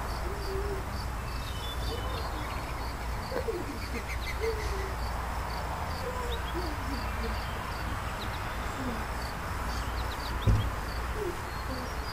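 Outdoor ambience: a faint high chirp repeating about twice a second over a low rumble, with scattered short low notes that slide in pitch and a single thump about ten and a half seconds in.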